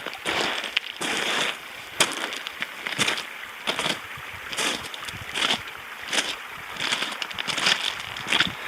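Irregular crunching and crackling, one or two sharp crunches a second, like close handling or movement on rough ground.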